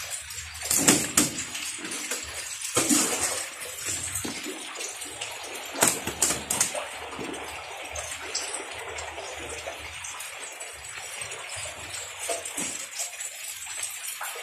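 Water splashing and sloshing around fish in plastic crates, with a few sharp clattering knocks against the crates: about a second in, near three seconds, and again around six seconds.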